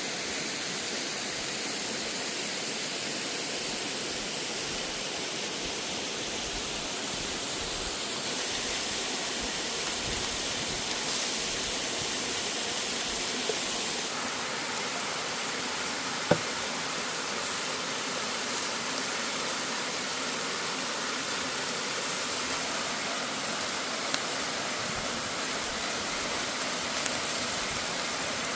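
Steady rushing of a waterfall, with one sharp knock a little past the middle.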